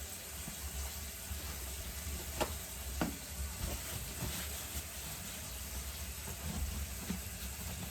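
Bathroom faucet running water into the sink and down the newly fitted push-button drain, a steady hiss, during a leak test; two light clicks are heard about two and a half and three seconds in.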